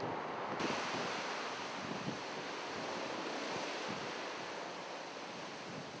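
Sea waves and wind buffeting the microphone make a steady rushing noise with low gusts. The hiss turns suddenly brighter about half a second in.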